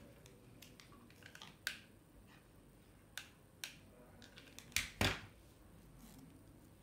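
Small craft pieces handled and set down on a tabletop: a few sharp clicks and taps, the loudest pair about five seconds in.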